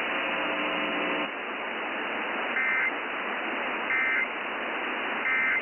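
Emergency Alert System End of Message signal: three short, identical bursts of two-tone digital data about 1.3 seconds apart, marking the end of the alert. Under them is steady radio static hiss, with a buzzing tone for about the first second.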